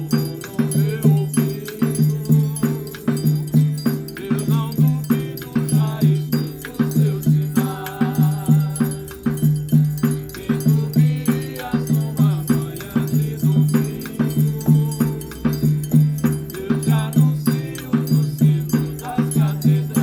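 Instrumental music: a low note repeating in a steady pulse, with rattling, shaker-like percussion over it.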